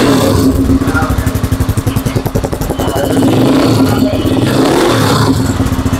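Rusi XL off-road motorcycle engine running loudly and being revved, heard close to its exhaust.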